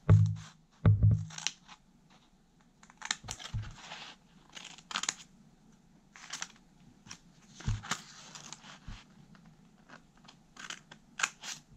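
Scissors snipping slits into a folded sheet of origami paper in short separate cuts, with paper rustling between them. Two dull thumps near the start are the loudest sounds.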